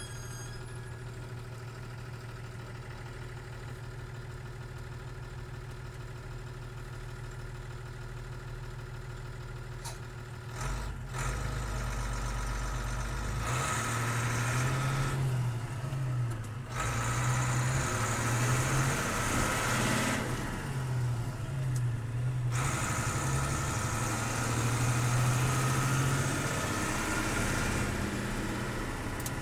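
Diesel engine of a 1984 Bedford truck heard from inside the cab: it idles steadily, then from about ten seconds in it gets louder and its engine speed rises and falls again and again, with a couple of brief dips.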